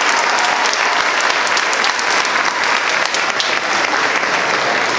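Crowd applauding steadily, a dense wash of many hands clapping.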